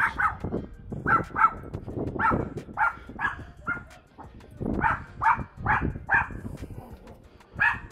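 A dog barking over and over, about a dozen short barks, some in quick pairs, with a brief pause midway.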